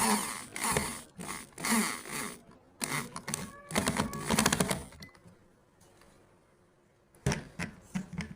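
Tool work on wood: bursts of rapid clicking and scraping for about five seconds, a lull, then a few short bursts near the end.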